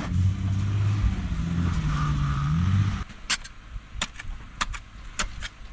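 Van engine revving in reverse as it tries to back out of snow, its pitch rising just before the sound cuts off about three seconds in. Then a quick series of sharp clinks and knocks.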